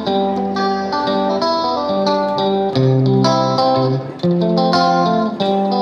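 Background music: a melody of plucked guitar notes, each struck sharply and left to ring.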